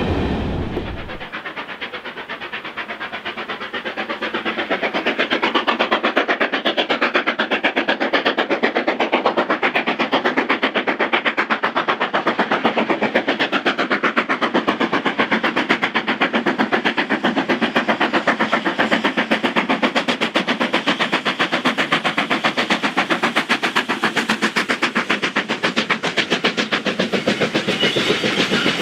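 Surf breaking on rocks for about the first second, then an LMS Black 5 4-6-0 steam locomotive working hard, its exhaust beating in a rapid, even rhythm. The beat grows louder over the next few seconds and then holds steady.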